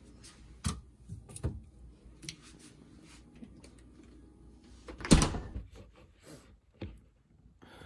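Refrigerator being opened and rummaged: a few light knocks of items shifted on its shelves, then the fridge door shut with a loud thump about five seconds in, followed by a single small click.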